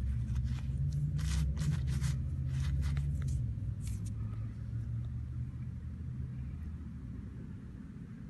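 Toothbrush bristles scrubbing dirt off a dug coin in a run of short scratchy strokes during the first four seconds, over a low rumble that swells and then fades out about two-thirds of the way through.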